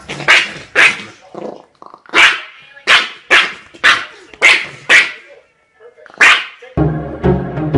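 A dog barking, about ten short, sharp barks in quick runs. Music starts near the end.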